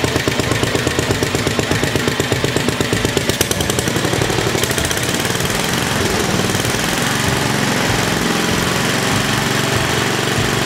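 Tecumseh HH100 10 hp single-cylinder garden-tractor engine running on a newly swapped-in aftermarket carburetor, on its first run after the swap. For the first few seconds it runs with a rapid, uneven pulsing beat, then about four seconds in it evens out into a steadier run.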